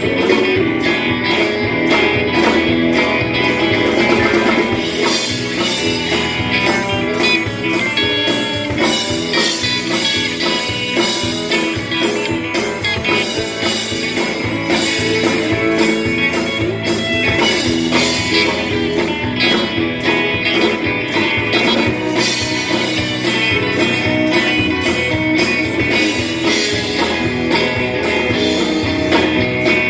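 Live band music: electric guitars, bass guitar, drums and keyboard playing together at a steady beat.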